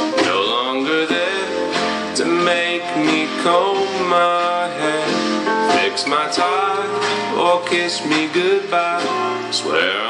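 Guitar-led song with plucked and strummed strings, played through a Tribit XSound Surf portable Bluetooth speaker and picked up by a camera's built-in microphone.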